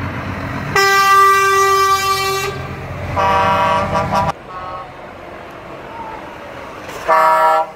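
Truck air horns sounding in several blasts at different pitches, a long one about a second in, another around three seconds and a short one near the end, over the low running of Mercedes-Benz lorries driving past.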